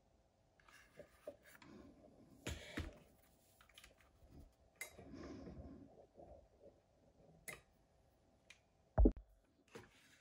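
Handling noise from a Milwaukee M18 FUEL cordless circular saw that is switched off: scattered clicks of its plastic and metal parts and cardboard rustling, with one heavy thump near the end, the loudest sound.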